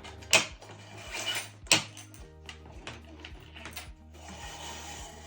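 A curtain belt being threaded through a curtain track with a plastic carrier piece: two sharp clicks, one just after the start and one a little under two seconds in, a short rustle between them and a longer sliding rub near the end, over background music.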